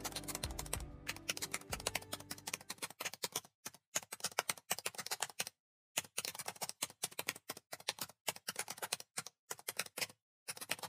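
Typing sound effect: rapid runs of key clicks broken by short pauses.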